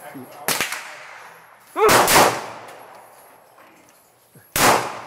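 Glock 9mm pistol firing three single shots: the first two about a second and a half apart, the third more than two and a half seconds later. Each is a sharp crack with a short fading tail.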